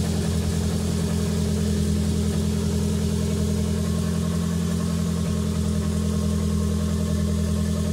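Turbocharged Nissan Hardbody pickup's engine idling steadily, heard close up from the open engine bay.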